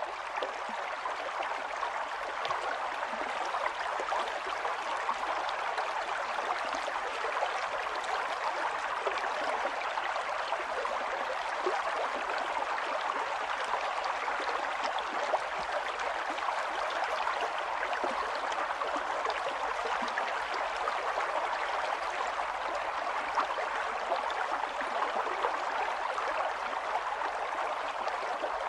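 Running water of a mountain stream, a steady rushing with fine splashes and gurgles.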